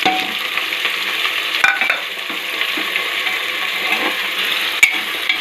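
Chopped onion and potato sizzling as they fry in hot oil in a pressure cooker, a steady hiss. Two sharp clinks sound as they are stirred, about a second and a half in and near the end.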